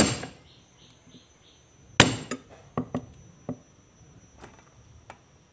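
Cleaver blade striking longan seeds on a thick round wooden chopping board, cracking them open: a sharp knock at the start and a harder one about two seconds in, followed by several lighter knocks.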